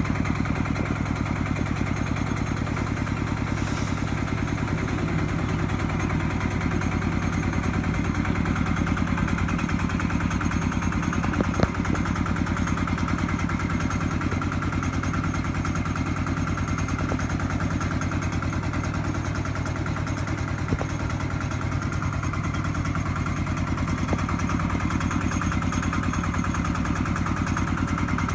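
Single-cylinder walking-tractor diesel engine running steadily under load, belt-driving a household rice mill as it hulls paddy. Two brief knocks stand out over the steady hum, one near the middle and one later.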